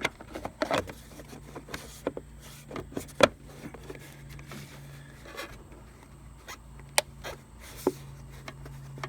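Plastic fuse box cover being pressed and worked onto an under-hood fuse box, giving scattered clicks and knocks with the loudest about three seconds in, over a steady low hum.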